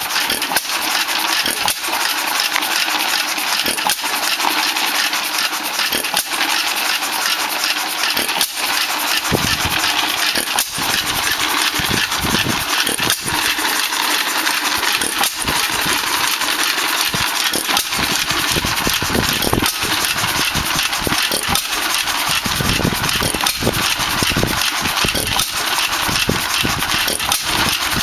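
Early-1900s 1¼ hp Monitor hit-and-miss engine running while it drives a belt-driven ice cream freezer, with a steady fast mechanical clatter throughout. From about a third of the way in, low firing thumps come only every so often, with coasting between them, in the hit-and-miss way.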